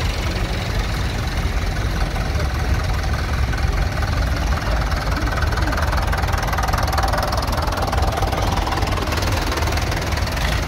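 Tractor engines running steadily as tractors drive slowly past one after another, with a blue Fordson Major passing close about midway.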